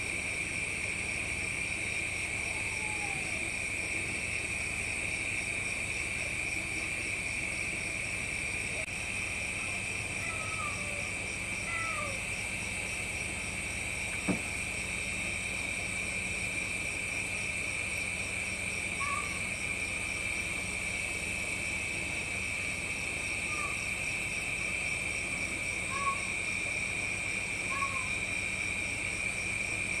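Night chorus of crickets and other insects: a steady, high-pitched trilling with an even pulsing rhythm. Short falling chirps from another animal come every few seconds, and a single sharp click sounds about 14 seconds in.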